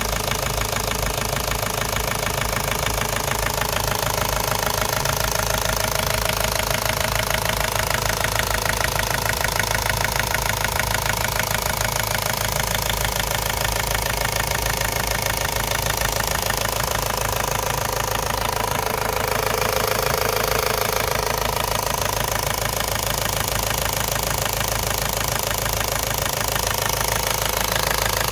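Ford Focus Mk1's 1.8 TDDi four-cylinder turbodiesel idling steadily with a rhythmic knock from the engine.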